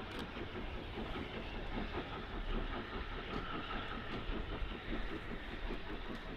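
Steam locomotive working toward the station under steam, a steady train sound with a dense, fast beat.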